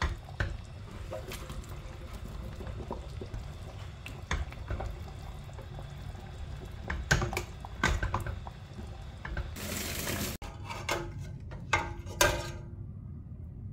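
A spatula stirring thick stew in a stainless steel pot: the sauce sloshes and the spatula knocks against the pot now and then, with a few sharp knocks near the end.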